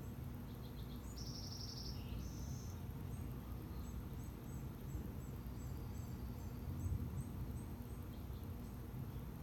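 Faint bird calls: a short buzzy trill about a second in, then a run of short, high chirps, over a steady low hum.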